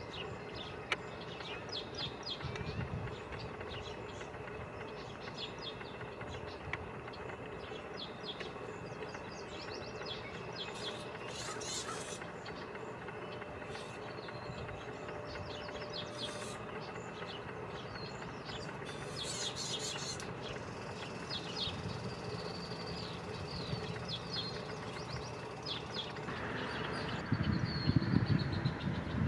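Outdoor bird sounds: many short high chirps scattered over a steady faint hum. A louder low rumble comes in near the end.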